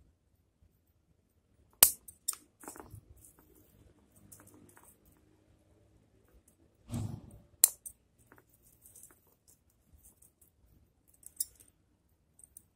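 Bonsai scissors snipping and clicking in a few sharp, separate strokes, the loudest just under two seconds in, with a duller knock about seven seconds in.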